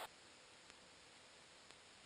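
Near silence: a faint steady hiss with two faint ticks about a second apart.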